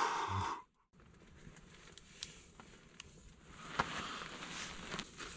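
A voice trails off, then the sound drops out completely for a moment just before a second in. After that there is faint hiss with a few sharp clicks and soft rustling.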